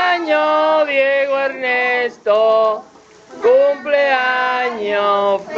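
A group of men's, women's and children's voices singing a birthday song in long held notes, with short breaks between phrases.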